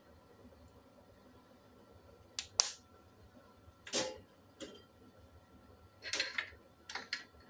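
Sharp clicks and taps of a small seasoning bottle being handled and shaken over a bowl, about six, some in quick clusters, starting about two seconds in.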